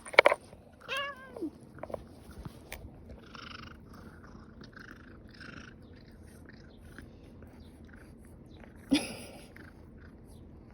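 Domestic cat meowing for food: a loud short cry at the start, then a falling meow about a second in. Scattered soft scraping sounds follow, and there is a sudden louder sound near the end.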